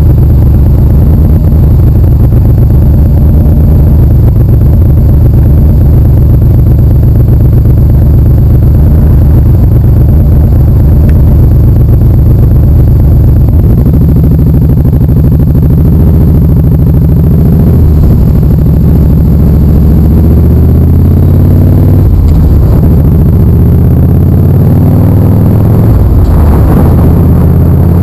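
Motorcycle engine, loud at the bike-mounted microphone, running steadily at idle for about half the time, then pulling away and accelerating with rising pitch, dropping back at each of a few upshifts.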